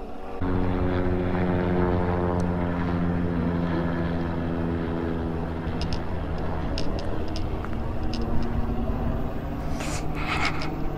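Propeller-driven light aircraft droning overhead: a steady low hum with many overtones that starts suddenly about half a second in and fades after about six seconds.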